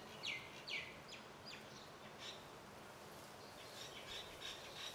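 Faint bird chirps: short downward-sweeping calls, several in the first two seconds and a few fainter ones near the end, over a quiet background hiss.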